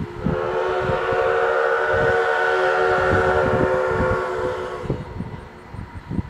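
Steam whistle of an 0-6-0 steam locomotive (Essex Terminal Railway #9) blowing one long, steady blast of about four and a half seconds, with several tones sounding together as a chord, cutting off near the end.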